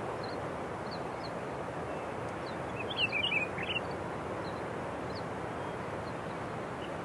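Steady outdoor background noise, with a small bird's short high chirps scattered through it and a quick burst of twittering about three seconds in.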